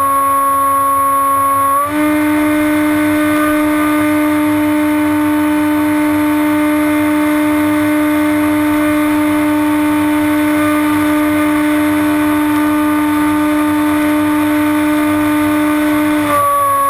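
Brushless electric motor and propeller of a HobbyKing Bixler RC plane whining steadily in flight, over a rush of air. The pitch steps up a little about two seconds in as the motor speeds up, and drops back near the end.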